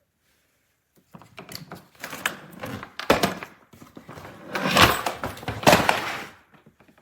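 A hardside carry-on suitcase being handled: a run of knocks, rubbing and scraping of the shell and its contents. It starts about a second in, has a few sharp knocks among the rubbing, and stops shortly before the end.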